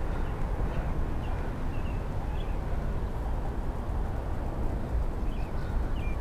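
Steady low outdoor background rumble, with short high bird chirps scattered through it.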